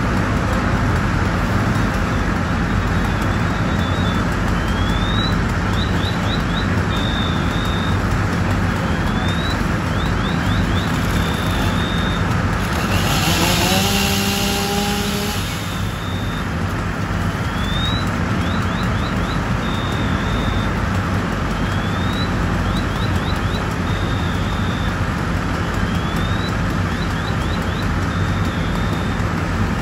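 Fire engine's diesel engine and pump running steadily. Over it a high electronic chirp pattern (a rising sweep, a quick run of chirps, then two short beeps) repeats about every four seconds. About halfway through comes a two-second blast of hissing air with a low tone.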